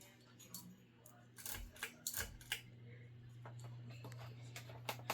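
A 1990 room air conditioner running with a steady low hum, faint, with scattered light clicks and knocks of handling on top.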